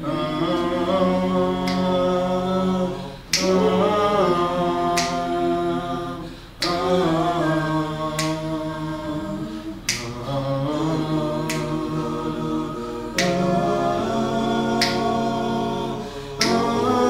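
A small mixed group of men and a woman singing a cappella in held harmony chords. A finger snap keeps time about once every second and a half.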